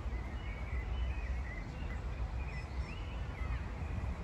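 Small birds chirping repeatedly in short, quick calls over a steady low outdoor rumble.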